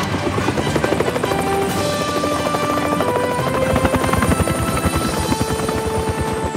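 Cartoon helicopter sound effect: a rapid, steady chopping of rotor blades as the helicopter flies out and sets down.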